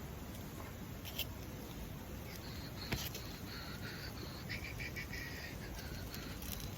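Wood campfire crackling with a few sharp pops, the loudest about three seconds in, over a steady low rumble. Short high chirping notes come and go through the middle stretch.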